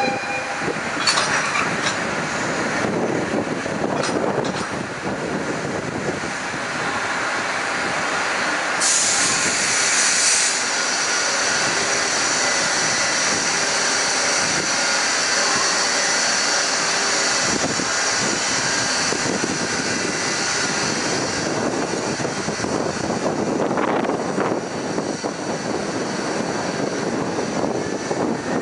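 Container freight wagons rolling past close by, their steel wheels running on the rails with a steady rumble and occasional clacks. About nine seconds in, a high steady wheel squeal joins and carries on.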